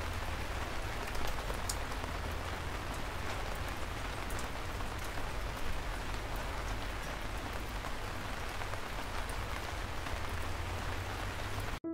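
Steady rain falling, with scattered sharp drop ticks and a low steady rumble underneath; it cuts off abruptly near the end.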